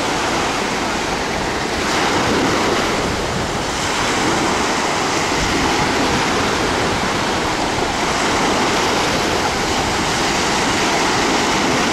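Sea surf: small waves breaking and washing onto a sandy beach in a steady rush that gently swells and eases, with wind rumbling on the microphone.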